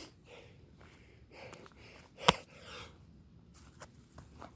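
A man breathing hard in short, heavy exhales mid-burpee, with one sharp slap a little past two seconds in.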